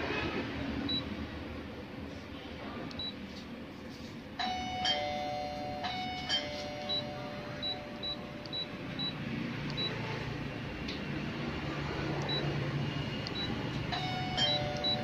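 Canon copier's touchscreen beeping at key presses: a dozen or so short, high beeps while text is typed on the on-screen keyboard. About four seconds in, and again near the end, a sustained two-tone electronic chime sounds over a steady low hum.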